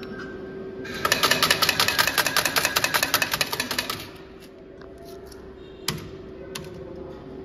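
Cristaltec 'Poppea' bar slot machine paying out a cash-out: coins clatter rapidly into the payout tray, about nine a second for some three seconds, then stop. A steady hum from the machine runs underneath, and two sharp clicks come near the end.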